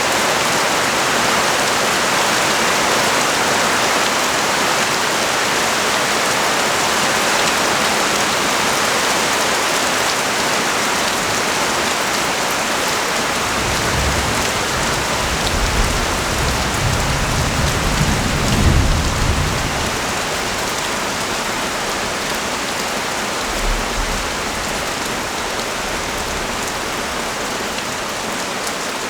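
Heavy rain pouring steadily. About halfway through, a low rumble swells up and fades away again over several seconds.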